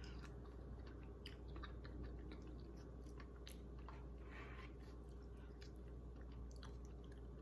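A person chewing a bite of blueberry and blackberry cobbler: faint, scattered soft clicks and mouth sounds over a low steady hum.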